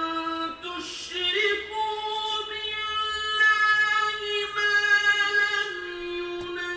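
Quranic recitation in a high voice, holding long melodic notes that slide from one pitch to the next, with the phrase ending near the end.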